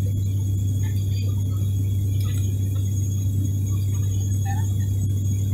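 Steady drone of an ATR 72's turboprop engines and propellers heard inside the passenger cabin during the climb-out: a strong low hum with a faint steady high whine above it.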